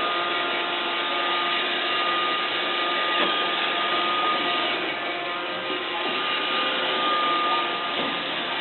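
iRobot Roomba 520 robot vacuum running steadily: a constant whine with a steady high tone over a hiss, with a faint knock about three seconds in.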